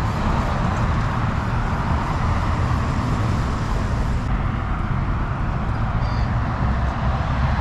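Steady road traffic noise: an even rumble of passing vehicles with no distinct events.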